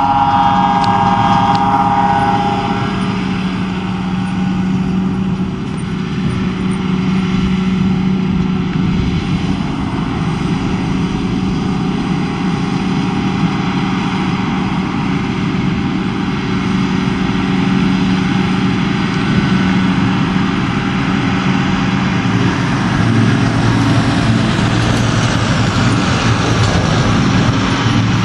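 John Deere 7750i self-propelled forage harvester running steadily under load as it picks up and chops grass for silage, with the tractor hauling the trailer alongside adding its own engine sound. A higher whine fades out within the first few seconds.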